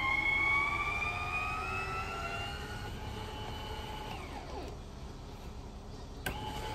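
A siren wailing, its pitch rising slowly and then dropping away about four seconds in. A single knock comes near the end.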